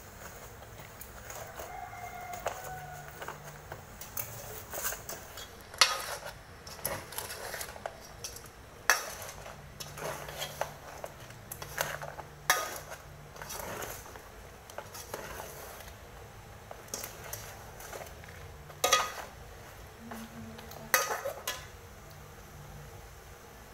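A metal ladle clinking and scraping against a metal cooking pot while stirring chunks of braised pork trotter in thick sauce. The sharp clinks come at irregular moments, the loudest around six, nine, nineteen and twenty-one seconds in.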